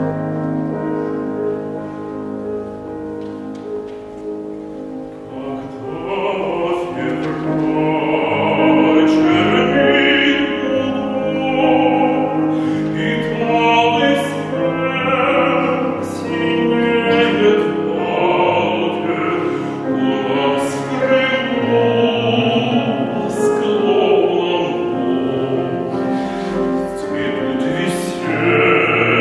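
A male classical singer in operatic style sings an art song to Kawai grand piano accompaniment. The piano plays alone for the first few seconds, and the voice enters about six seconds in with a wide vibrato.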